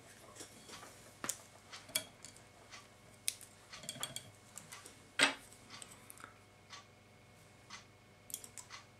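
Scattered light clicks, taps and rustles of hands handling fly-tying tools and materials at a vise, as a tool is slid over the hook to fold the tied-in fibres back. The sharpest click comes about five seconds in.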